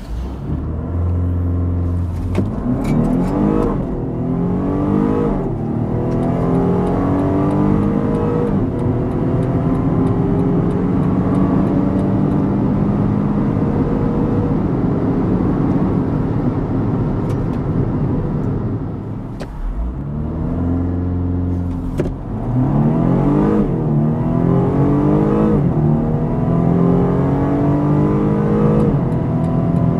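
BMW M135i xDrive's 2.0-litre turbocharged four-cylinder engine, heard from inside the cabin, during two full-throttle acceleration runs. Each run starts with a low steady drone, then the engine note climbs and drops back at a string of quick upshifts before settling into a long, steady high-speed pull. About two-thirds of the way through, the engine eases off briefly before the second run.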